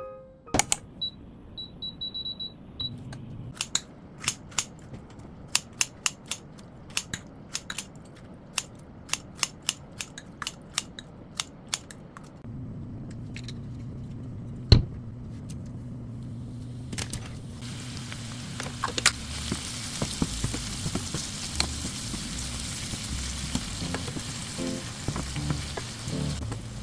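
A run of sharp kitchen clicks and taps, like utensils and containers being handled, for about the first half. Then a steady low hum starts, and a few seconds later food begins sizzling in a hot pan, a steady hiss with small pops.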